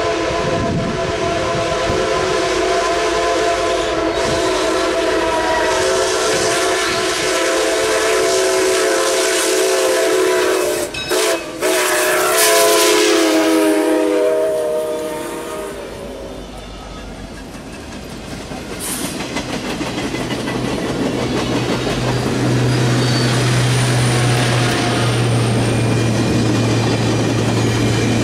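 A train whistle sounds a long, held multi-note chord as CP 2816, a 4-6-4 Hudson steam locomotive, approaches. Its pitch drops as it goes by about halfway through. Then the rumble and wheel clatter of the tenders, a trailing diesel and passenger cars rolling past, with a low steady engine drone in the second half.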